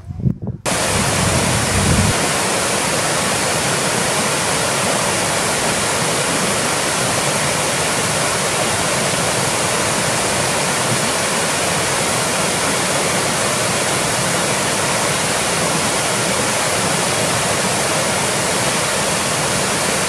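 Small waterfall cascading over rock slabs into a pool: a steady rush of falling water that cuts in abruptly just after the start.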